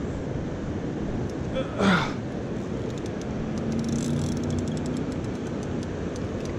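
An angler's sharp, hard exhale about two seconds in, from the strain of fighting a heavy catfish, over a steady rush of river and wind noise. The spinning reel ticks faintly and rapidly as it is cranked, around four to five seconds in.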